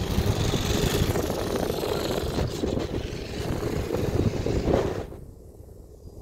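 Wind buffeting the microphone on the open top deck of a moving bus, over the hum of the bus and road traffic. About five seconds in the rumble drops away to a much quieter hum.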